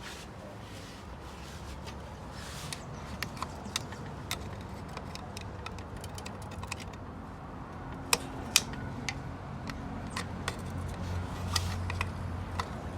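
Light metallic clicks and taps of small transmission parts being handled as a locking key is worked into its slot on a ZF 8HP automatic transmission drum, a few sharper clicks partway through. A steady low hum runs underneath, stronger in the second half.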